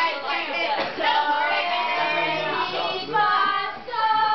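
Several women's voices singing together as a vocal warm-up, settling into long held notes near the end.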